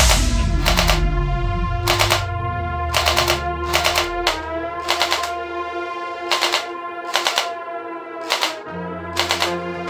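Short bursts of rapid clicking shots from a toy AR-15 gel blaster fired on full auto, a burst roughly every second, over electronic music with sustained synth chords.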